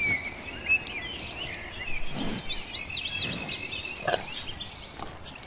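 Several birds chirping and warbling in quick, overlapping short calls, with a few dull soft thuds in between.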